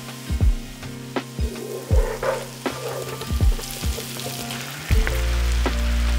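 Food sizzling in a frying pan as it is stirred with a wooden spoon, under background music with a beat. A deep bass comes in about five seconds in.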